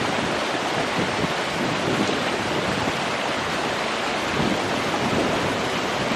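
Running water: a steady, even rush of flowing water.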